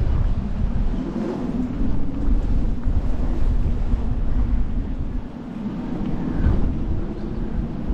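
Wind buffeting a GoPro Hero 10 Black's microphone: a heavy, uneven rumble that rises and falls with the gusts.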